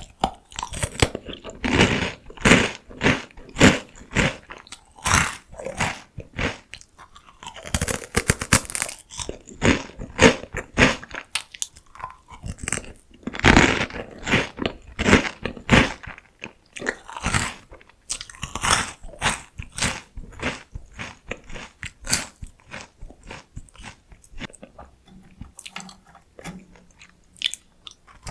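Close-miked crunching and chewing of crisp, salty potato-stick snacks, with many sharp crackly bites. The crunching thins out and quietens near the end.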